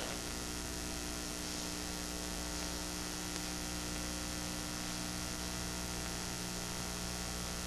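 Steady electrical mains hum: a low buzz made of many evenly spaced tones, with no other sound standing out.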